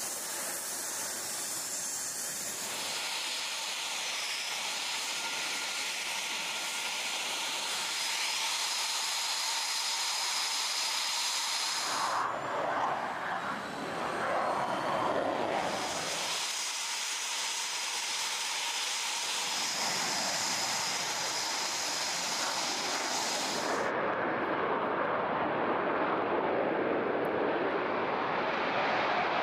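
Eurofighter Typhoon's twin Eurojet EJ200 turbofans running, a steady jet whine and hiss that changes abruptly a few times. In the last few seconds it gives way to a deeper, fuller engine noise as the jet takes off.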